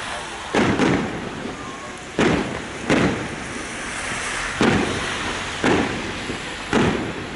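Fireworks display: about seven sharp bangs of aerial shells bursting at uneven intervals, each trailing off in a rolling rumble.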